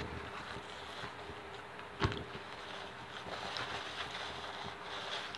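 Eating close to the microphone: a sharp crunch or bite right at the start and another about two seconds in, over a steady hiss and a faint hum.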